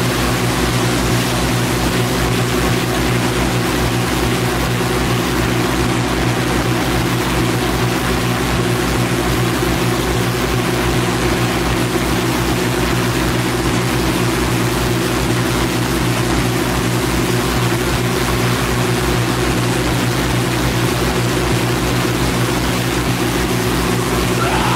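Power electronics noise track: a dense wall of harsh hiss over a steady low droning hum, with a fast, regular low pulse throbbing underneath. It runs at a constant, loud level without change.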